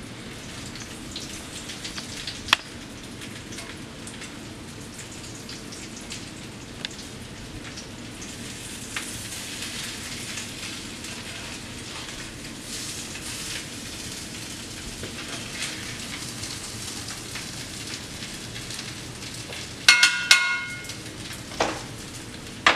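Crappie fish cakes breaded in Ritz crackers sizzling as they fry in hot butter and canola oil, a steady crackling hiss. They are golden brown and ready to flip. A few clicks and a short ringing clatter sound near the end.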